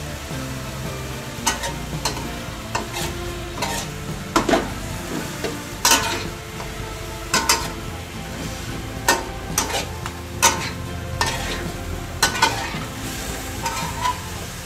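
A metal spatula scraping and clanking against a metal wok, with repeated sharp strokes about every second, as green beans and pork are stir-fried over a steady sizzle.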